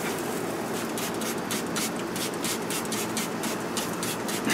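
Hand-held trigger spray bottle being squeezed again and again, a quick hissing spritz about four times a second.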